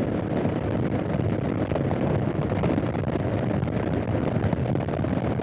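Voge SR4 Max's 350 cc single-cylinder engine running steadily while riding, mixed with wind rushing over the microphone.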